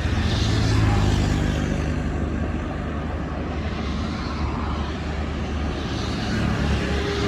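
Shantui DH17C2 bulldozer's diesel engine running steadily with a deep drone, swelling a little about a second in and again near the end.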